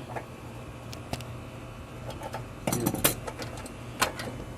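Scattered clicks and a brief clatter of drain hardware being handled as a nut on a sink's pop-up drain assembly is tightened by hand, the loudest clatter a little past halfway, over a steady low hum.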